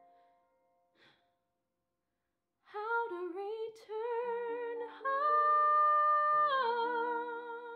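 After a couple of seconds of near silence, a woman starts singing a long held phrase with vibrato over sustained piano chords; her voice grows louder in the middle and eases off near the end.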